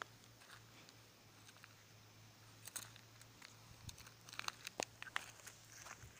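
Faint scattered clicks and crunches, like footsteps on dry gravelly soil, coming more often in the second half, over a low steady hum.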